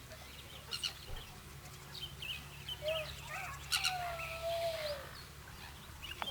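Harbour-side outdoor ambience: birds chirping and calling in quick short notes, with one longer gliding call in the middle, a few sharp clicks, and a steady low hum underneath.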